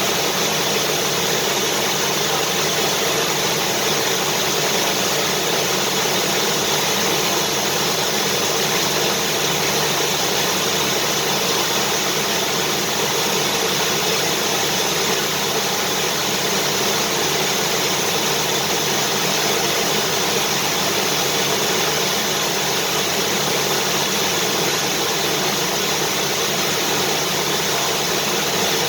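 Vacuum cleaner motor running steadily, a constant even whooshing hum with no change in pitch or level, used as white noise to soothe a baby.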